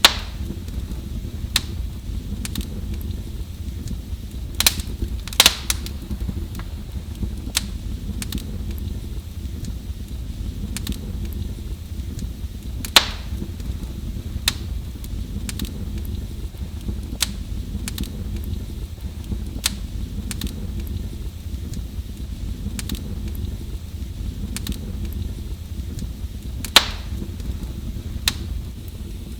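Wood fire crackling in a fireplace: irregular sharp pops and snaps over a steady low rumble of the flames, with a handful of louder snaps, one of them near the end.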